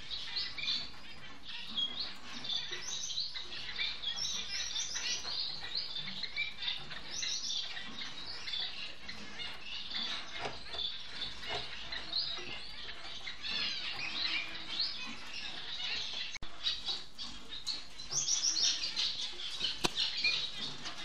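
Society finches (Bengalese finches) chirping and twittering, many short high notes and quick downward-sweeping calls overlapping without a break, with a sharp click near the end.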